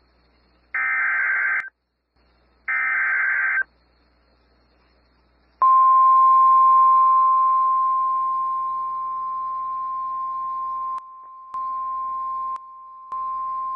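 Emergency Alert System SAME header: two short, buzzy bursts of data tones about a second apart, then the steady single-pitched 1,050 Hz attention tone. The tone starts loud, fades down, and dips briefly in level twice near the end. It signals the start of a National Weather Service severe thunderstorm warning.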